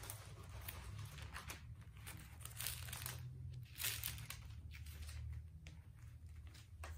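Thin Bible pages being leafed through by hand: a run of irregular soft paper swishes and crinkles, the sharpest about four seconds in, over a low steady hum.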